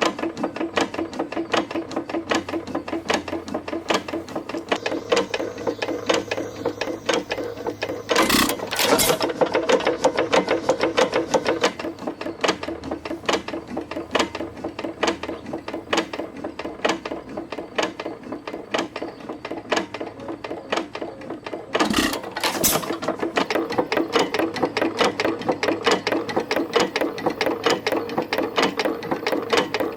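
4.5 hp Detroit Engine Works hit-and-miss engine running: a rapid, even clanking of gears, rod knocking and piston pumping, with two pairs of loud bangs about 8 and 22 seconds in as it fires, coasting between.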